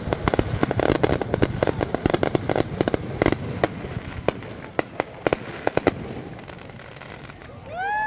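Fireworks going off in a dense rapid volley of sharp bangs and crackling pops, thinning to scattered single reports after about six seconds. A rising whistle-like tone begins near the end.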